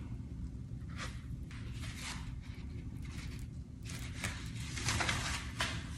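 Handling noise: a steady low rumble from the camera being held, with faint rustles and scrapes of foam pool noodle pieces being handled close to it.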